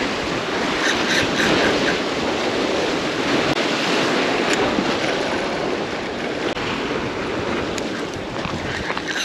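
Ocean surf washing against a rock jetty, a steady rushing with wind buffeting the microphone.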